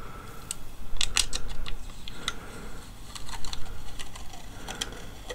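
Protective backing being peeled off the base of a copper graphics-card cooler by hand, heard as scattered, irregular small sharp clicks and ticks.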